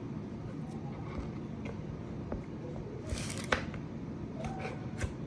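A cookie scoop working through firm, chilled cookie dough: a few light clicks and one brief scrape about three seconds in, with a sharper click near the end.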